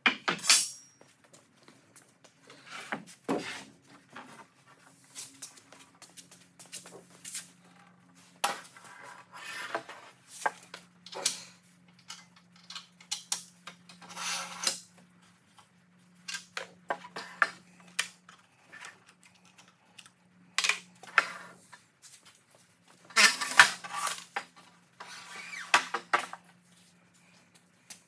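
Wooden boards being handled: a scattered run of knocks and clatters as boards are picked up, slid and set down, over a faint steady hum.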